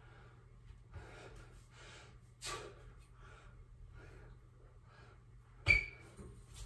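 A man breathing hard through a set of pull-ups, with a short forceful puff of breath on each pull. About six seconds in comes a single sharp knock with a brief metallic ring.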